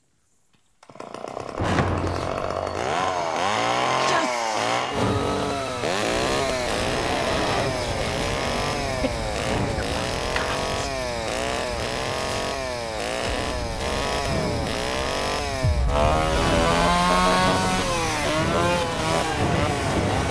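Chainsaw revving over and over, its pitch surging up and falling back more than once a second, starting after a second of near silence. Around sixteen seconds in, the revving turns to longer, smoother swells.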